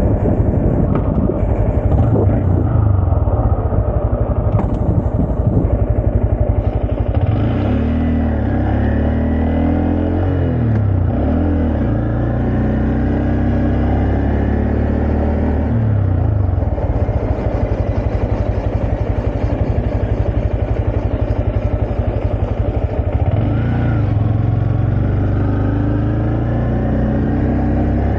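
2023 Honda Grom's 125cc single-cylinder engine running while ridden, its revs rising and falling several times.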